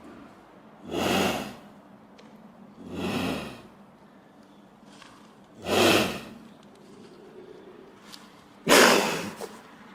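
Canada lynx making short, breathy calls, four in all, spaced two to three seconds apart; the last, near the end, is the loudest and starts sharply.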